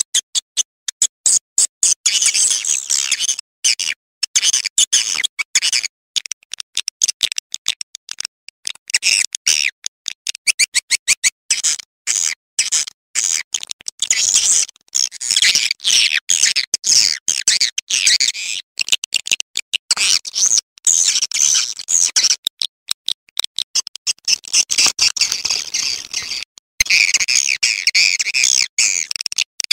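Swiftlet call recording (a mixed lure track for swiftlet nesting houses): rapid, high-pitched chirping and twittering from many birds, chopped by many brief silences.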